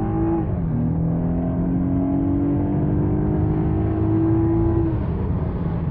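BMW 528i's turbocharged four-cylinder engine under hard acceleration. Its note climbs, drops sharply at an upshift about half a second in, climbs again through the next gear, and eases off near the end.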